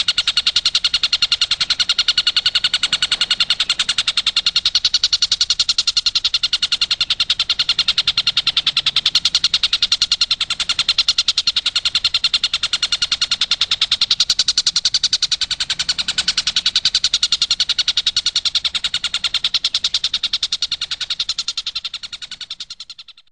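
Tengkek buto kingfisher giving its rapid-fire 'tembakan' call: a long, unbroken run of very fast, high repeated notes, fading out near the end.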